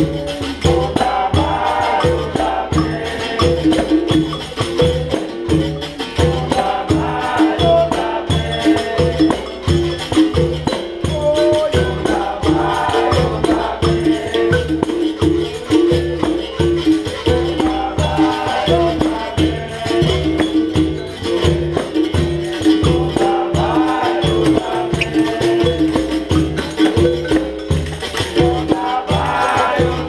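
Live capoeira Angola roda music: an atabaque drum and pandeiro keep a steady beat, about two strokes a second, under a berimbau's held tone and group singing.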